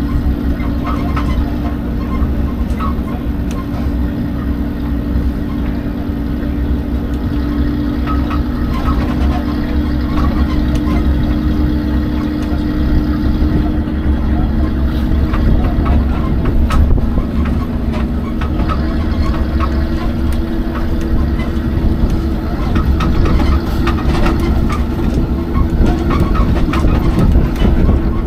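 Open-sided parking-lot tram driving along at a steady speed: a constant engine drone with a low rumble, heard from aboard an open passenger car, with scattered light rattles and clicks.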